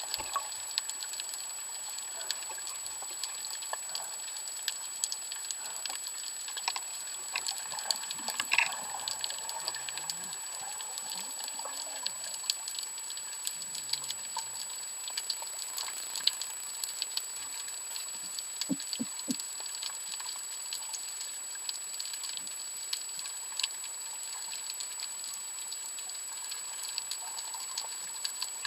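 Underwater reef ambience heard through a camera housing: a constant crackle of fine, irregular clicks, typical of snapping shrimp, over a steady high-pitched whine. Three quick low knocks come about two-thirds of the way through.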